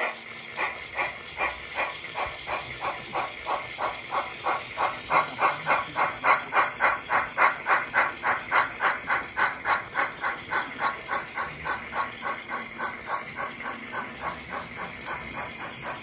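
Model locomotive sound decoder chuffing: a steady hissing beat about two and a half times a second that grows louder through the middle and then fades.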